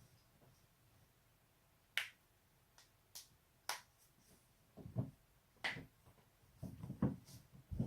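Joints being cracked: a run of about eight sharp pops at uneven intervals, the later ones mixed with dull low thumps.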